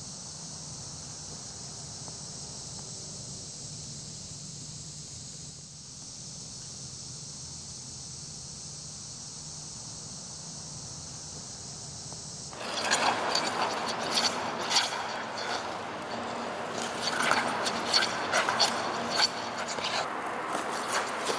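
A steady, high-pitched insect chorus, which cuts off suddenly about two-thirds of the way in. Figure skate blades then carve and scrape across rink ice in rapid, irregular strokes, louder than the insects.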